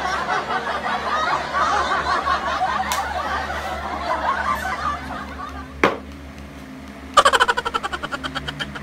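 Snickering laughter, then a single sharp knock, then a quick, fading run of giggles about seven seconds in.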